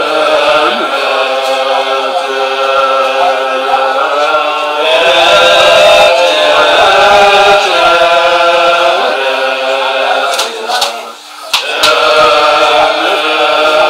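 Tibetan Buddhist monks chanting prayers together in sustained, melodic unison, with a brief break about eleven seconds in before the chant resumes.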